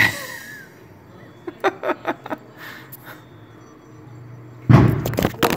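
Sudden loud boom about three-quarters of the way in from an electrical transformer exploding at a power substation, running on as a rough crackling rumble.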